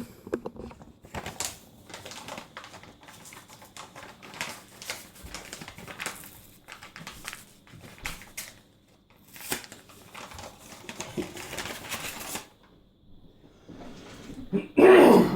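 Rapid light metallic clicks and rattles as a thin stamped sheet-metal computer I/O shield and its packaging are handled, followed by a short gap and a brief louder noise near the end.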